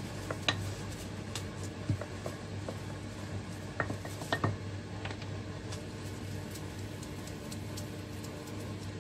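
A few light clicks and knocks of kitchen things handled on a countertop, bunched about half a second in, near two seconds and around four seconds in, over a steady low hum.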